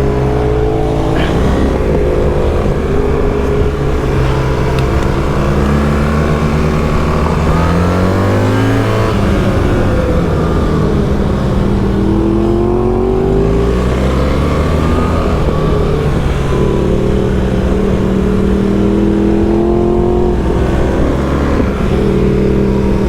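BMW R1300GS boxer-twin engine under hard riding on a track lap. Its note climbs in pitch through the gears, drops off about nine seconds in, then rises and falls again several times with throttle and gear changes.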